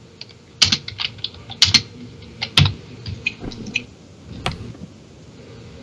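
Computer keyboard keys clicking in an irregular run of keystrokes, a dozen or so sharp taps that stop about a second before the end.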